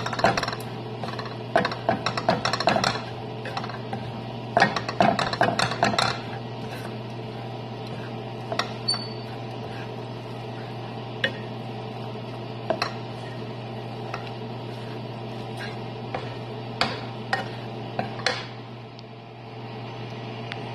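Wooden spatula scraping and knocking against a pan as a shredded chicken and vegetable filling is stirred, busy for the first several seconds and then only an occasional knock. A steady low hum runs underneath.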